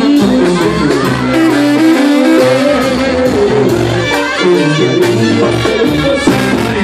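Live regional Mexican band playing: a sousaphone bass line stepping under trumpet, guitar and drums.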